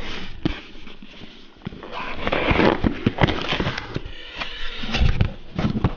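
Cardboard shipping box being handled and its flaps opened: irregular taps and scrapes, with a stretch of rustling from the packing inside partway through.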